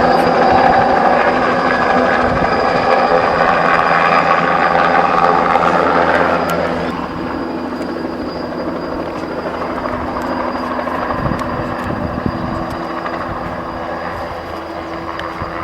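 Helicopter flying overhead, a steady drone of several held tones that drops in level about six or seven seconds in and stays lower.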